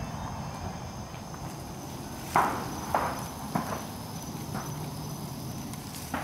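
Distant gunshots from a shooting range: a handful of sharp reports between about two and five seconds in, the first the loudest, each trailing off in an echo. Insects keep up a steady high chirring throughout.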